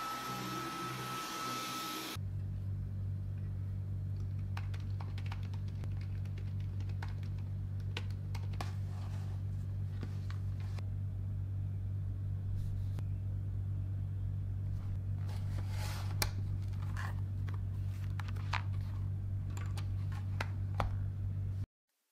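A pen writing on the page of a spiral-bound journal: scattered light scratches and taps over a steady low hum. At the start a stick vacuum cleaner is running on carpet. It cuts off about two seconds in.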